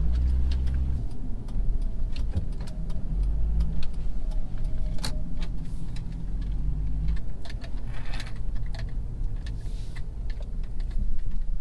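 Car cabin noise while driving: a steady low engine and road rumble, with frequent light clicks and rattles.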